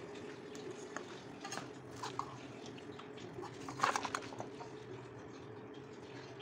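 Small clicks and knocks of kitchen utensils being handled on a counter, with a short cluster of sharper metallic clicks about four seconds in as a pot is handled. A steady low hum runs underneath.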